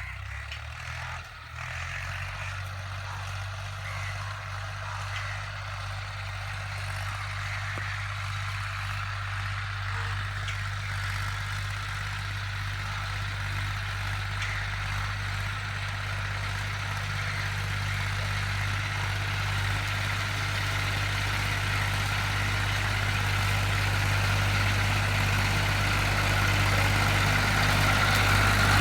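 Tractor diesel engine running at a steady pitch, growing gradually louder as the tractor comes closer.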